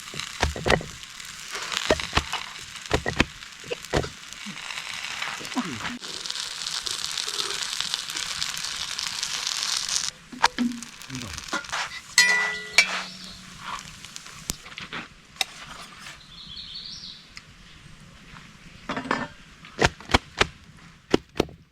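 Kerala parotta sizzling in oil on a hot pan over a campfire, a steady hiss that stops suddenly about halfway through. After it come scattered clinks and knocks of utensils.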